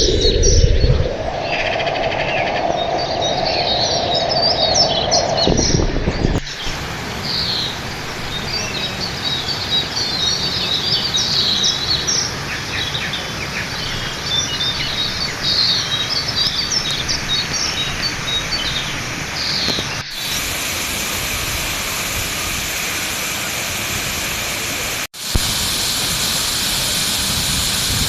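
Birds chirping over a steady rushing background hiss, in several edited segments. About two-thirds of the way through the chirping stops and only the steady hiss remains.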